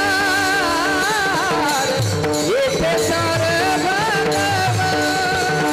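Marathi devotional kirtan singing: male voices hold long, wavering notes, with one pitch sweep up and back about two and a half seconds in. Small brass hand cymbals (tal) and a drum keep a steady beat underneath.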